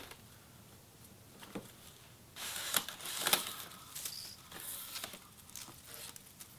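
Plastic side skirt being handled and pressed into place along a car's sill: about two seconds in, a few seconds of rustling and scraping with a couple of sharp clicks or knocks.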